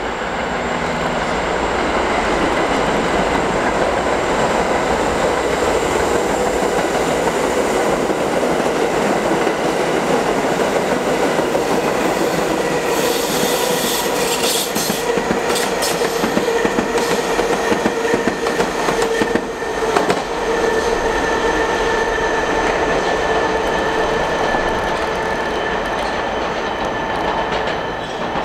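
New York City Subway train running past on steel rails: a steady rumble with a held squeal from the wheels. A burst of sharp clicks as the wheels cross rail joints comes about halfway through.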